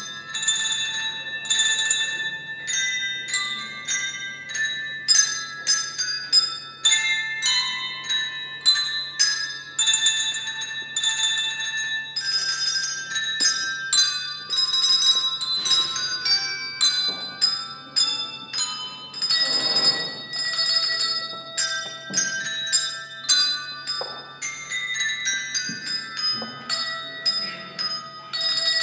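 Music played on tuned bells: a quick, continuous run of high, ringing struck notes, often several sounding together, over a steady low hum.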